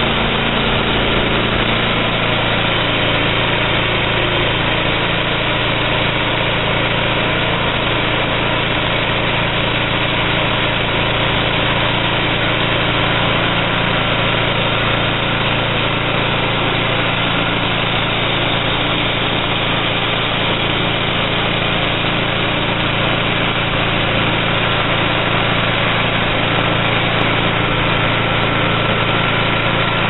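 Homemade band sawmill running, its 11-horsepower gas engine holding a steady speed.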